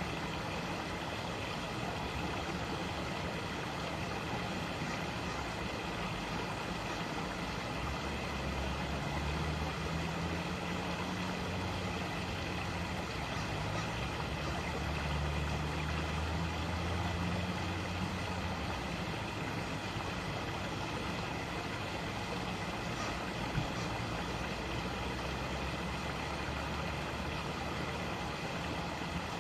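Small rocky creek running, a steady rush of water. A low engine hum from a passing vehicle rises in pitch about a third of the way in and fades out a few seconds past the middle.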